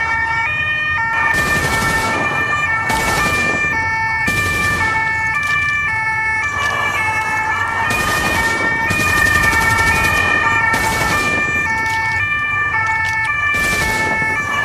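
Two-tone emergency siren, alternating between a high and a low note about every 0.7 seconds over a steady whistling tone, with bursts of hiss about every second and a half.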